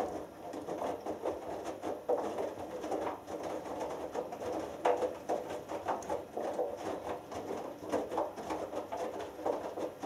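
Hoover Dynamic Next front-loading washing machine's drum turning during the wash, wet laundry tumbling and sloshing in irregular surges. It starts abruptly as the drum begins a turn and stops about ten seconds later as the drum pauses.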